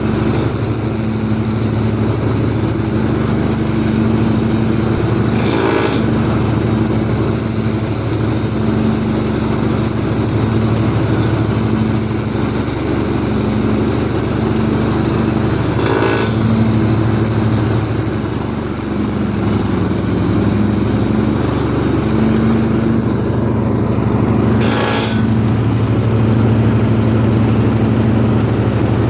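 Husqvarna riding mower running with its cutting deck engaged: a steady engine hum with a metal grinding from the deck, and three short sharper scrapes about 6, 16 and 25 seconds in. The grinding comes with the deck engaged even though the blades are tightened, a fault the owner has not yet traced.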